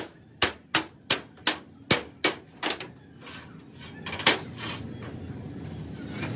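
Hand hammer striking steel angle iron on a steel sheet: a run of about nine sharp metallic blows, roughly three a second, over the first three seconds. One louder metal clank follows a little after four seconds in.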